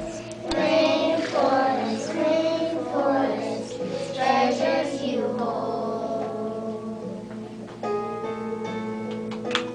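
A group of young children singing a song with instrumental accompaniment. The singing stops about halfway through while the accompaniment plays on with steady notes.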